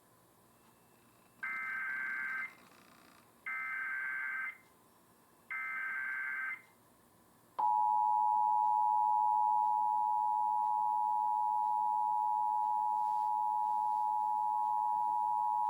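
Emergency Alert System header for a National Periodic Test: three one-second bursts of warbling SAME data tones, about a second apart, then the two-tone EAS attention signal (853 and 960 Hz) starting about seven and a half seconds in and held steady for about eight seconds.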